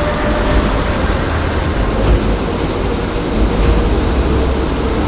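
Steady, loud rushing noise of river water with wind rumbling on the microphone.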